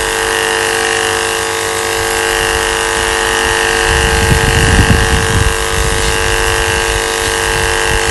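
Cordless 24-volt washing pump running with a steady whine, water hissing from its spray gun. A lower rumble joins about halfway through.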